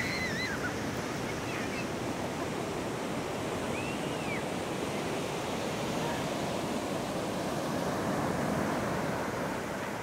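Surf washing steadily onto a sandy beach, an even hiss of breaking waves and foam. A child's faint high cry trails off at the start, and a second one comes about four seconds in.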